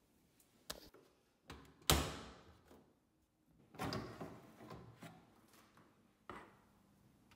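Bathroom cabinet being opened and shut. A few separate knocks and clicks come through, the sharpest about two seconds in, with a rougher scraping rustle of things being handled around four seconds.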